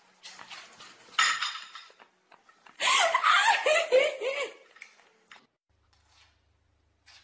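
Cutlery and dishes clatter against a plate, then a person laughs loudly in repeated bursts for about two seconds.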